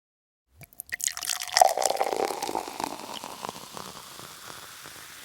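Liquid poured into a glass, with a few clicks at the start, splashing loudest about a second and a half in and then fading away over several seconds in small crackles.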